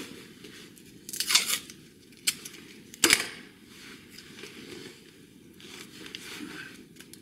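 Blue painter's tape pulled off its roll and torn, with a click and then a sharp knock about three seconds in as the roll is set down on the wooden bench, followed by faint crinkling as the tape is wrapped round a drill bit as a depth-stop flag.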